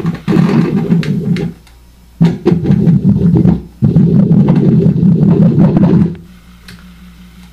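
Homemade hand-cranked drone/noise instrument: two stepper motors spun through 3D-printed gears, their electromagnetic pulses picked up by homemade guitar pickups and played through a guitar amplifier as a rough, noisy drone. It comes in three cranked spells with short breaks between them, then drops to a low steady amplifier hum about six seconds in.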